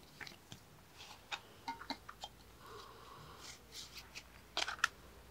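Faint handling of a paper CD booklet, with small scattered clicks and rustles as it is folded, then a quick cluster of louder clicks near the end as it goes back into a plastic CD jewel case.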